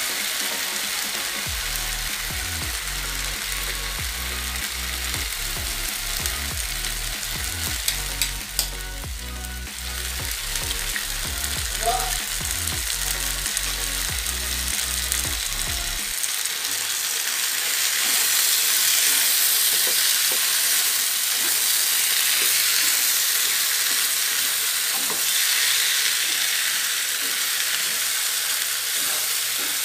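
Sliced bitter melon sizzling as it stir-fries in a frying pan, with a few sharp clicks about eight seconds in. Past the middle the sizzle grows louder as an egg goes into the pan and the mixture is stirred with chopsticks.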